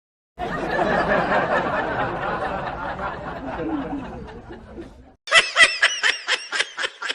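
Laughter sound effect: a crowd laughing that slowly fades out, then a quick staccato laugh about five seconds in.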